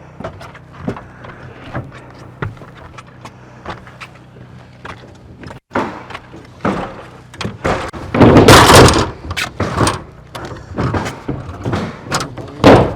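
Scattered knocks and thumps from handling a ladder and roofing gear, with a loud rushing scrape about eight seconds in and a shorter one near the end.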